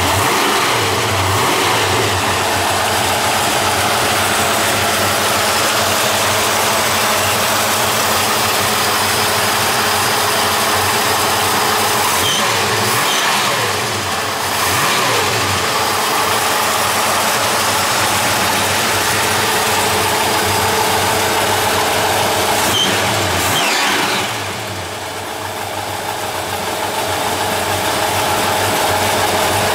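A 600-plus horsepower crate Hemi V8 in a 1965 Dodge Coronet running steadily at idle. The sound eases off briefly about halfway through, and again near the end before building back up.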